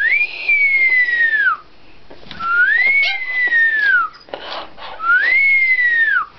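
Pet parrot whistling three times, each a clear whistle of about a second and a half that rises and then slides down in pitch.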